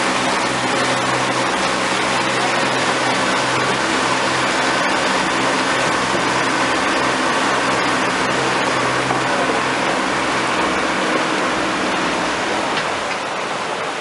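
Tour boat's motor running steadily at cruising speed, a low hum under the loud rush of water along the hull. The hum eases a little in the last few seconds.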